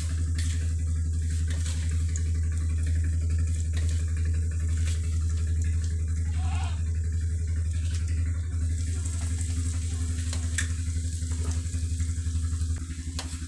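A steady low hum with an even buzz of overtones, dropping in level near the end, with a few light clicks.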